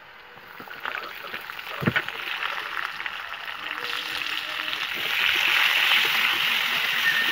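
Vegetables sizzling in hot oil in a steel wok, with a single thump about two seconds in. The sizzle grows louder about five seconds in, once sliced squash is in the pan and being stirred with a wooden spatula.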